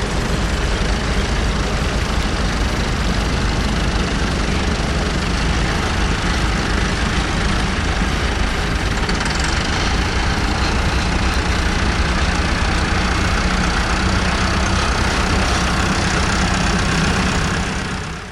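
Vintage tractor engine running steadily at idle, then fading out at the very end.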